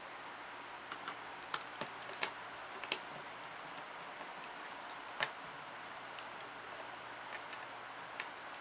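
Light, irregular clicks and taps from a green-cheeked conure playing with a pen and a paper triangle, with the beak and feet knocking on the objects. The clicks come in scattered ones and twos, most of them in the first half, over a faint steady hiss.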